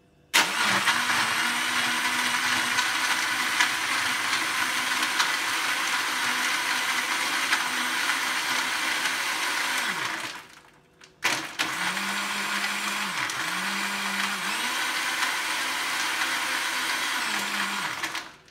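Countertop blender running, its motor blending ice, pawpaw, yoghurt and water into a smoothie. It stops for about a second around the middle, then starts again, its motor pitch dipping several times in the second run.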